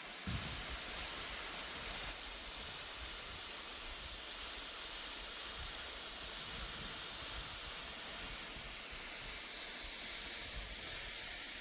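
Steady outdoor hiss with a fluctuating low rumble underneath, and one short thump just after the start.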